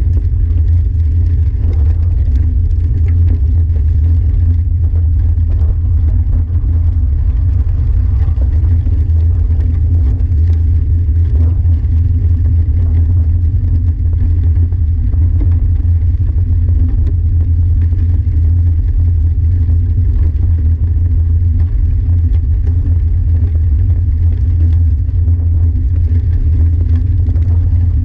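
Steady, loud low rumble of wind and travel vibration on an action camera moving over a gravel trail, with faint crackle of gravel under the wheels.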